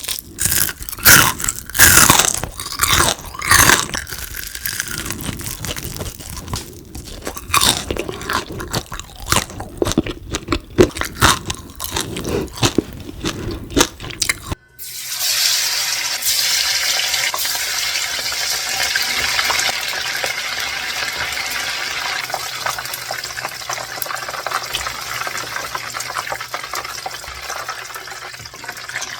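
Loud, crunchy biting and chewing of crispy deep-fried frog, in quick irregular crunches. About halfway through this cuts off suddenly and gives way to a steady hiss with fine crackling.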